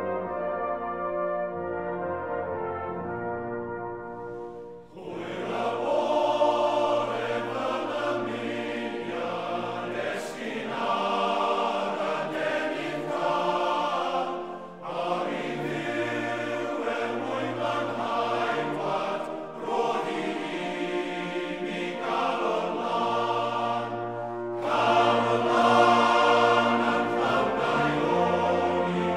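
Orchestral background music: held brass chords, then from about five seconds in a choir singing over the orchestra.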